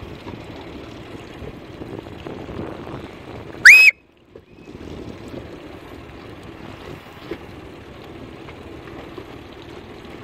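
One short, very loud whistle blast about four seconds in, rising in pitch and then held briefly, over steady boat and water noise. The sound drops out for about half a second right after the blast.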